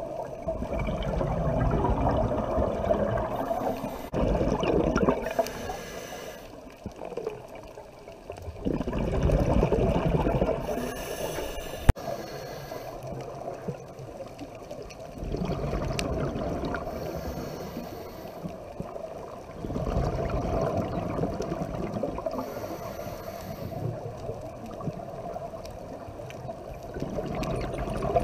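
Scuba diver's exhaled breaths bubbling out of the regulator, heard underwater through the camera housing: a bubbly rush lasting a couple of seconds, coming back every four to five seconds with quieter gaps between. A single sharp click near the middle.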